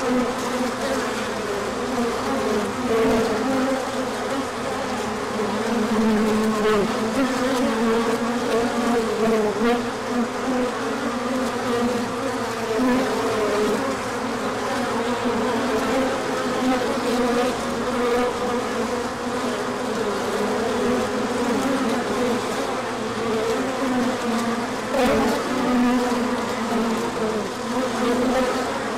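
Many honey bees buzzing in flight together: a steady drone that wavers slightly in pitch and loudness.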